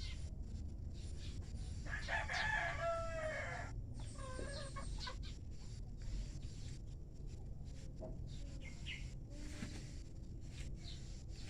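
A rooster crows once about two seconds in, a call of under two seconds that drops in pitch at the end. A few faint, shorter bird calls follow later, over a steady low rumble.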